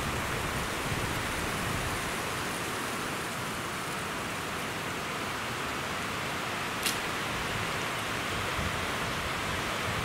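Steady rush of wind through shoreline pines and over choppy lake water, with an uneven low rumble of gusts underneath. A single sharp tick about seven seconds in.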